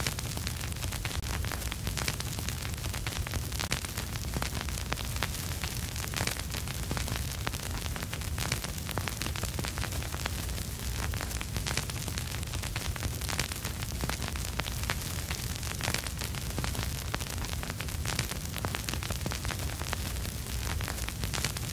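Vinyl record surface noise with no music playing: a steady hiss and low rumble under dense, irregular crackles and pops.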